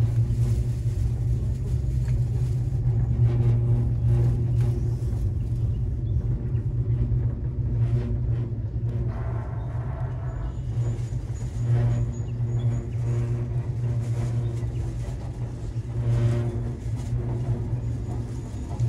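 Steady low rumble and hum inside the cabin of the Yoshino aerial ropeway gondola as it travels along its cable, with a faint higher hum swelling every four seconds or so.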